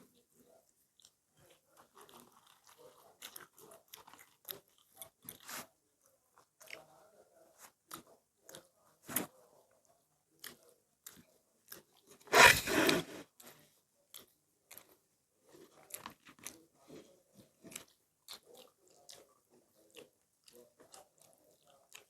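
People eating close to the microphone: chewing and biting, with many small crunches and clicks. A single much louder noisy crunch or rustle comes a little past halfway and lasts under a second.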